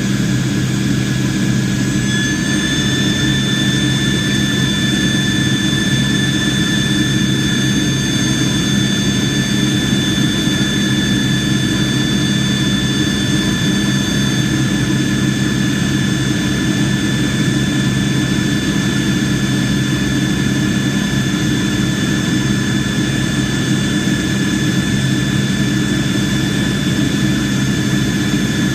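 Airliner jet engine running steadily: a low drone under a high turbine whine that steps up slightly in pitch about two seconds in.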